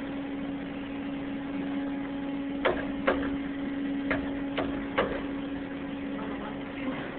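Five sharp knocks, about half a second to a second apart, from striking the CNC mill's work-holding fixture to loosen it so the parts can come out. A steady machine hum runs under them.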